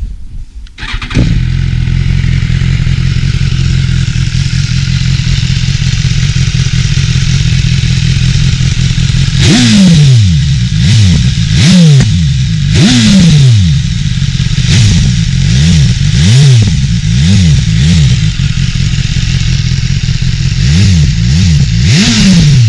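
BMW S1000XR's inline four-cylinder engine on its standard exhaust, starting about a second in and idling, then blipped hard about a dozen times from about nine seconds in, the revs shooting up and dropping straight back. Loud and aggressive.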